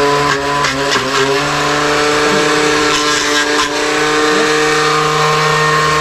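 Electric countertop blender motor running at full speed with an empty jar, a loud, steady whine at one constant pitch. This is a test run just after its blade assembly was replaced, and the pitch starts to fall right at the end as it is switched off.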